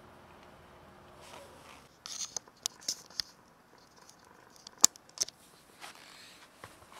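Cat crunching dry kibble: an irregular run of sharp crunches and clicks starting about two seconds in, the loudest a little before the five-second mark.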